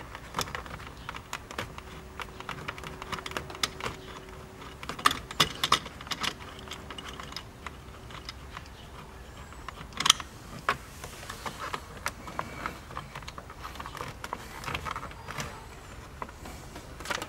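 Light, irregular clicking and ticking of a screwdriver turning a T15 Torx screw out of the centre console trim, with a sharper click about ten seconds in.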